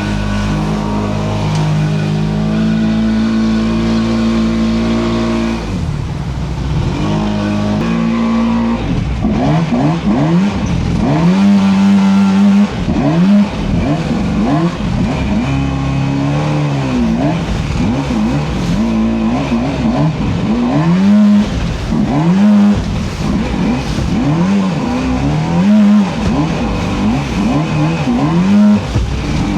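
A small creek boat's motor running at steady speed, then speeding up and slowing down again and again, its pitch rising and falling about every second or two.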